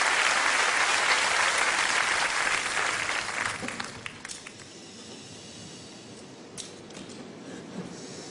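Audience applause, loud at first and dying away over the first four seconds. A few scattered last claps follow in a hushed room.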